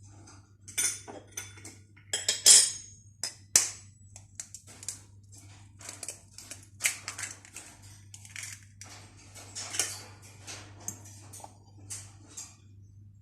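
Metal utensil clinking and tapping against a mixing bowl in irregular strikes as cake batter ingredients are handled, over a faint steady low hum.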